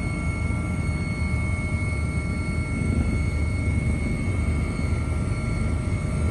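Helicopter in flight, heard from on board: a steady low rotor and engine rumble with thin, steady high-pitched tones above it.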